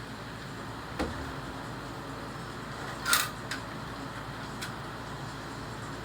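Handling clatter of a plastic smoke alarm and its metal over-door mounting hook: a dull knock about a second in, a short rattle a little after three seconds, then a few light clicks, over a steady background hiss.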